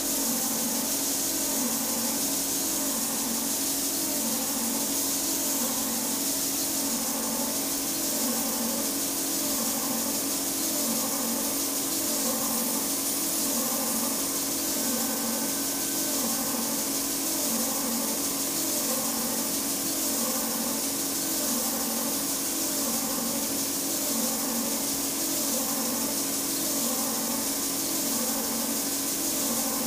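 Linisher (belt sander) running steadily with a wooden workpiece held lightly against the moving abrasive belt, sanding its curved edges.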